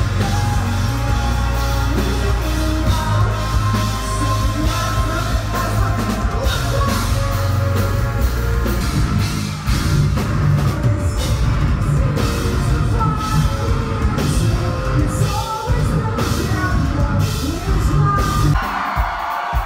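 A rock band playing live with singing, drums and heavy bass, loud and dense. The music drops out about a second before the end.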